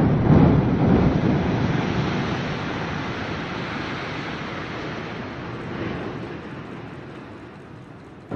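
Rumble of a building collapsing in demolition, loudest at the start, then fading steadily over several seconds as the debris settles.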